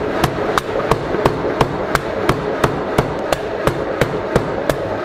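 Chambersburg 3CH 300-pound pneumatic forging hammer running, its ram striking a wooden board on the anvil die at a steady rate of about three blows a second, each a sharp thump as the wood splinters. A steady hum from the running machine lies under the blows.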